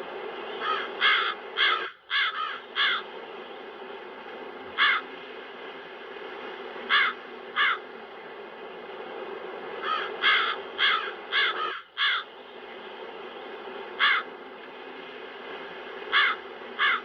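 Crows cawing, some in quick runs of three to five caws and some singly, over a steady wind noise bed that dips out briefly twice.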